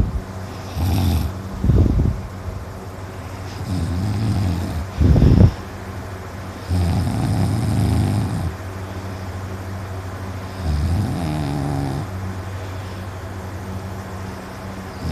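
A man snoring loudly in deep sleep: about six irregular snores, some short and sharp, some a second or more long, over a steady low hum. He puts the heavy snoring down to exhaustion and a very relaxed throat.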